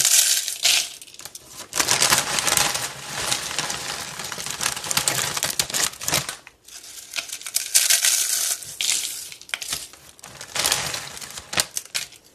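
Corn chips crushed by hand into a plastic bowl, crunching and crackling in irregular bursts with short pauses between handfuls.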